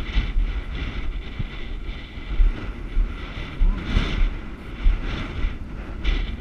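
Wind buffeting the microphone in uneven gusts, a heavy low rumble with bursts of hiss.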